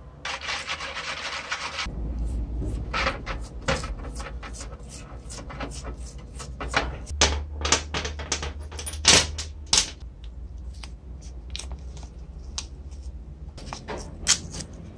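A steady hiss for about two seconds, then small metal pencil-sharpener parts, the helical cutters and their frame, clicking and clinking as they are handled, with a few sharp knocks in the middle and another near the end.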